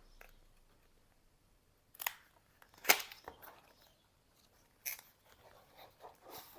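Retail packaging being opened by hand: a few sharp snaps and crinkles of cardboard and plastic, the loudest about three seconds in, with faint rustling between.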